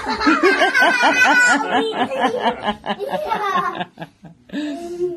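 Hearty laughter: a fast run of short 'ha' syllables, about four a second, for some three seconds, then a pause and a brief last burst of laughing near the end.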